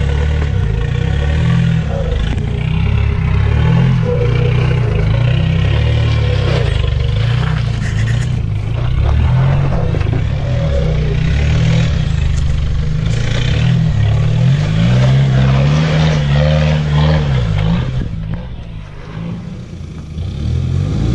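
Off-road 4x4 engine running under load and revving, with clattering and scraping as the vehicle works over the trail. The revs rise about three-quarters of the way through and drop off again, and the engine is quieter for a couple of seconds near the end.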